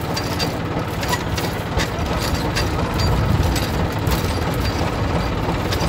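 Farm tractor engine running steadily at a low idle, with occasional light ticks.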